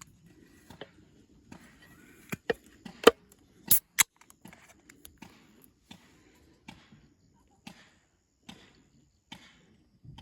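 Sharp clicks and knocks of hard objects being handled: a quick run of loud ones about two to four seconds in, then single faint ticks about once a second.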